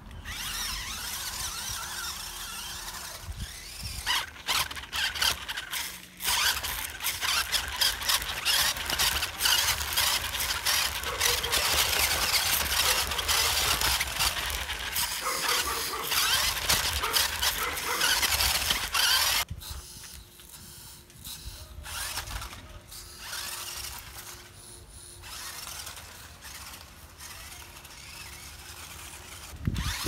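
Toy electric RC rock crawler driving over rough ground: its small motor and gearbox whine, with a lot of crackle and clatter from the wheels. It is louder through the middle and drops off about two-thirds of the way through.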